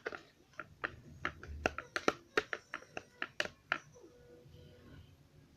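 Slime being stirred in a container: a quick irregular run of sticky clicks and taps that thins out after about four seconds. The slime has started to clump and is being mixed until it comes away clean from the container's sides.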